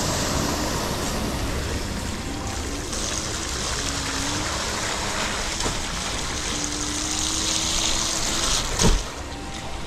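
Wind rushing over the microphone and a KingSong S22 electric unicycle's tyre rumbling over rough ground while riding, with faint short hums. A sharp knock about nine seconds in is the loudest moment.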